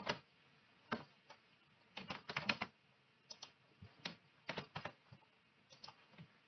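Computer keyboard typing: scattered single keystrokes and short quick runs of keys, the busiest run about two seconds in.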